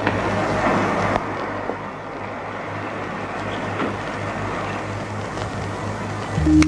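Steady background noise with a low hum and a few faint clicks, typical of an old film soundtrack's ambience. Sustained music tones come in right at the end.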